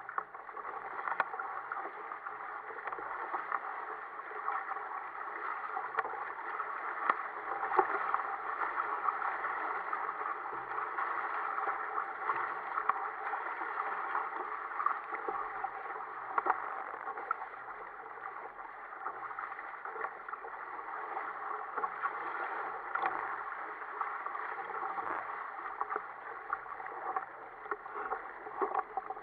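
Sea water rushing and splashing along the hull and outrigger floats of a sailing kayak moving at speed under sail, a steady wash with frequent small slaps of waves.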